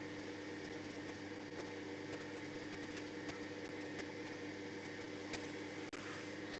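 A steady hum with several steady tones running under it, like a fan or motor picked up by an open call microphone. Faint, scattered clicks run through it, which fit keystrokes as a username is typed.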